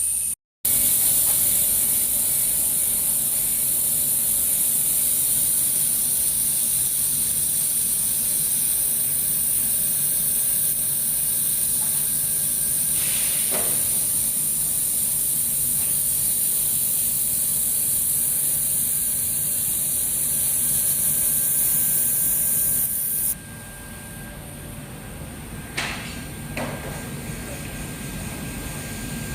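Handheld fiber laser welding gun running, with a steady high hiss of shielding gas over a low steady hum. The hiss cuts off abruptly most of the way through, leaving only the hum.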